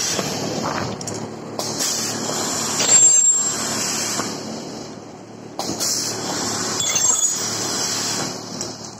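Ultrasonic rotary table plastic welding machine running its weld cycles: repeated bursts of air hiss, about every one and a half to two and a half seconds, over a steady machine noise, with a brief high whine on some of the bursts.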